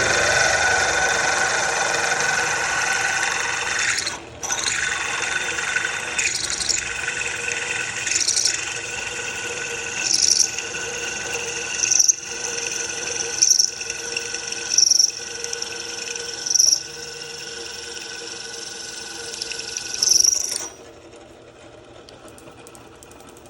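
Milling machine cutting metal: a steady machine whine with a brief high-pitched squeal of the cutter recurring every second or two. About 21 seconds in the cutting stops and only a much quieter running sound remains.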